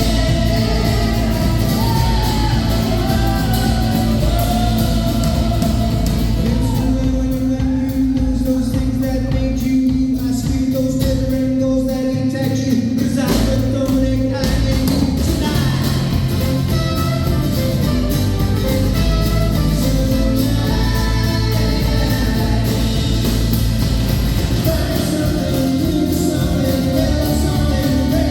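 Live rock song with a band and a singer. The vocals drop out for an instrumental passage of held chords in the middle, then come back in.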